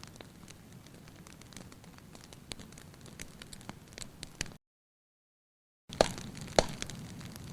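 Wood fire in a fireplace crackling, with frequent small irregular snaps over a soft low rush of flame. The sound cuts out completely for about a second just past the middle, then comes back with two loud pops.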